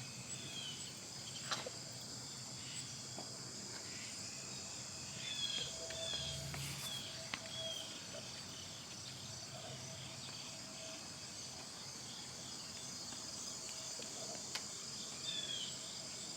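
Steady, faint high chirring of crickets, with a few short, high falling chirps over it.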